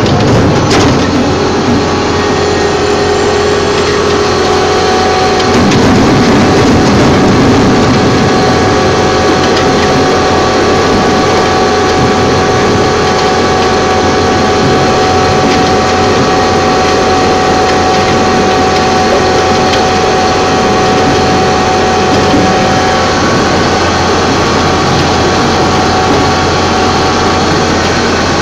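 Heavy machinery running steadily and loudly: an engine with a steady whine over it, growing a little louder about five seconds in.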